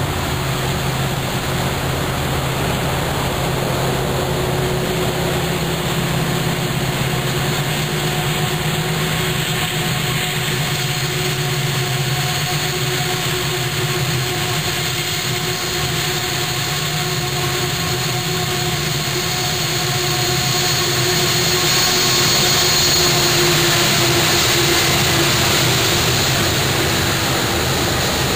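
A consist of Union Pacific diesel locomotives, led by SD70ACe UP 1989, runs steadily as it approaches, with a few faint steady engine tones, and grows louder in the last several seconds as the locomotives come alongside.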